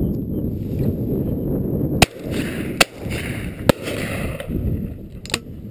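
Four sharp shotgun reports on a pheasant shoot: the first about two seconds in, two more less than a second apart after it, and a last one near the end. Wind rumbles low on the microphone underneath.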